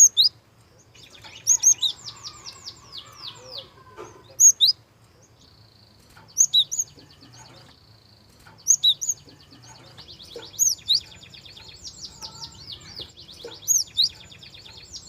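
Gelatik songbird song: rapid runs of quick descending whistled notes, a buzzy trill partway through, and loud sharp call notes in groups of two or three about every two seconds.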